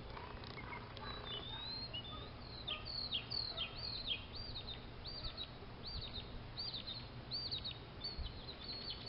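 A songbird singing, repeating the same short, high, down-slurred chirp about twice a second. Under it is a faint, steady low outdoor background noise.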